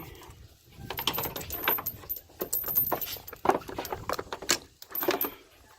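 Metal sockets and hand tools clinking and rattling against each other in a quick, irregular string of sharp clicks, as the right socket is searched for.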